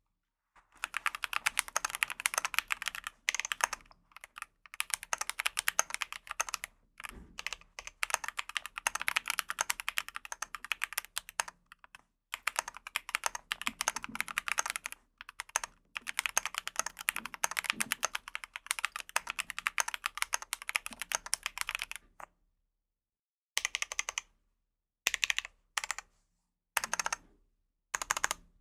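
Fast typing on a Keychron Q10 aluminium mechanical keyboard fitted with Momoka Flamingo linear switches: long runs of quick, sharp keystrokes, then a short pause and a few brief separate bursts of keypresses near the end.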